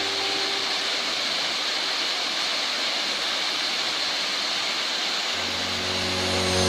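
Small waterfall cascading over rocks into a pool: a steady rush of falling water. Background music fades in near the end.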